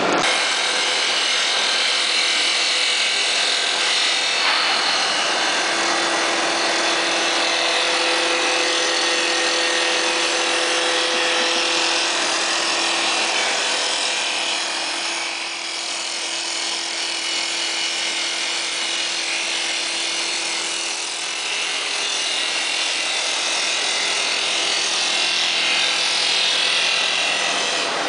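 Automatic wood-turning lathe's milling cutter machining a spinning wooden workpiece, a steady loud cutting noise with a motor hum running beneath it through most of the middle.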